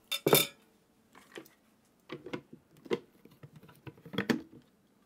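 Softened dried red chili peppers and their soaking water being tipped into a blender jar: a dozen or so irregular clacks, knocks and small wet patters of the peppers, bowl and jar.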